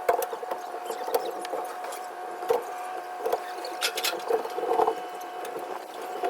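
Irregular creaks, knocks and clicks of a floating wooden boat dock shifting and being worked on, with a brief scrape about four seconds in, over a steady high hum.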